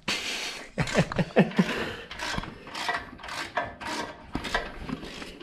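Hand socket ratchet being worked on an exhaust clamp bolt: a run of short clicking strokes, about two a second, as the bolt is loosened.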